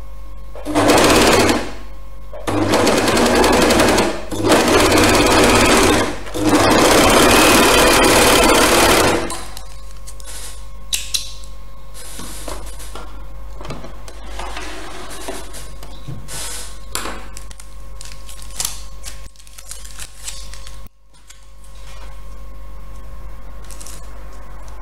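Domestic electric sewing machine stitching a seam through wool knit backed with paper, in four runs of fast, even rattling over the first nine seconds or so. After that come only light clicks and rustles as the work is handled.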